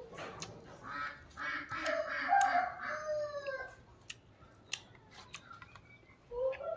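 A rooster crowing about a second in, one long call that ends in a falling note, followed by scattered sharp clicks and smacks of eating by hand. A second long call begins near the end.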